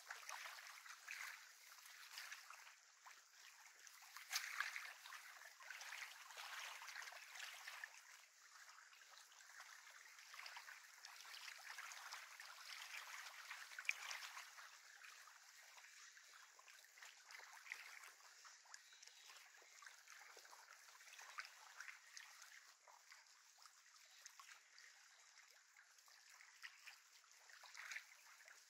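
Faint lapping and trickling of small wind-driven waves against a lakeshore, with a few soft ticks, the loudest about fourteen seconds in.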